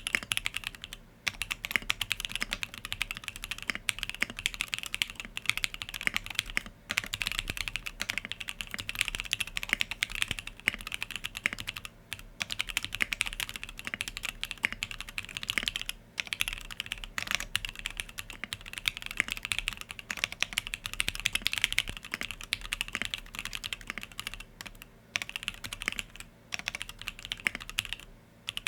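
Fast, continuous typing on a Sangeo65 mechanical keyboard with an aluminium plate, plate foam and SP-Star Yanyu linear switches lubed with Krytox 205g0: a dense run of key clacks, broken by a few short pauses.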